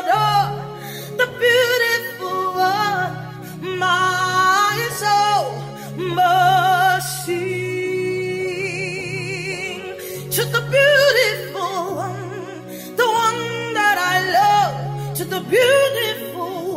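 Gospel worship singing: a high voice sings long, sliding note runs with wide vibrato over a steady instrumental backing.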